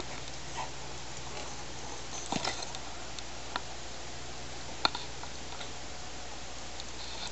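Handling noise from a handheld camera being moved about: a few short clicks and rubs, the clearest about two and a half seconds in and again near five seconds, over a steady low hum and hiss.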